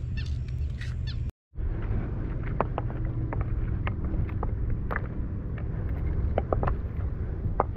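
Steady low wind rumble on the microphone, with scattered faint clicks and ticks. The sound drops out for a moment about a second and a half in.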